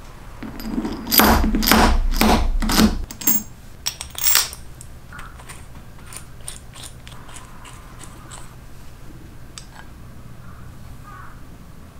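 Steel ball bearings clinking and knocking against each other and a steel bolt as they are slid on and stacked, a dense run of loud clinks for a couple of seconds, then a few more. After that, sparse light metal clicks as a nut is threaded onto the bolt.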